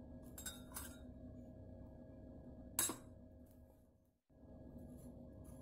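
Faint steady hum of room tone, with one short clink about three seconds in from a steel spoon tapping ceramic crockery as milk is spooned into the bowl. A brief silent gap follows just after four seconds.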